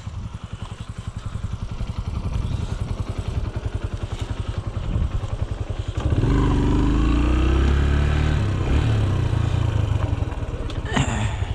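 Small farm motorbike engine running with a fast, even beat, then speeding up and getting louder about six seconds in as it pulls away.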